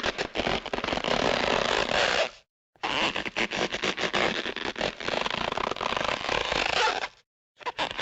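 Two sound-effect clips played back to back, separated by a short silence about two and a half seconds in, each a dense scratchy, crackling rasp that stops abruptly.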